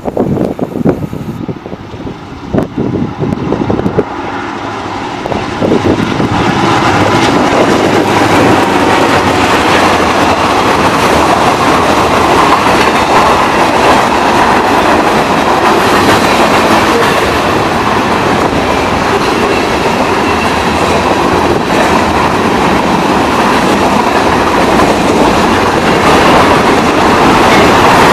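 Freight train rolling past close by, its boxcars, tank cars and gondolas clattering with a steady clickety-clack of wheels over rail joints. The sound swells about six seconds in as the cars come alongside, then holds loud and steady.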